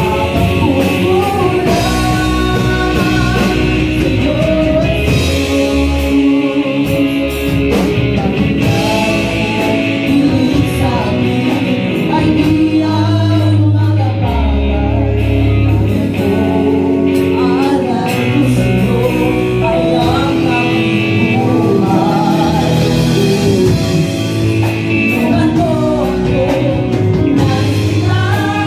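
Live amplified rock band: male and female singers on microphones sing a song together over electric guitars, bass and drums.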